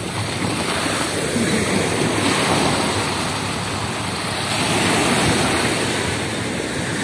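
Sea surf washing onto the beach, a steady rush of breaking waves that swells a little about five seconds in.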